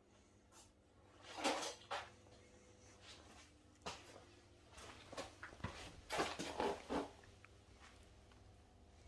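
Scattered knocks, scrapes and clatter, like things being handled and set down, loudest in a burst about a second and a half in and a cluster of knocks around six to seven seconds in.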